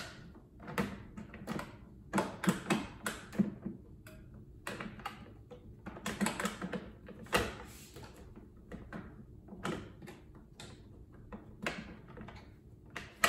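The removable door of a Deluxe air fryer oven being worked back onto its hinges: irregular clicks, knocks and rattles of the door and its latch levers, in a series of short bursts.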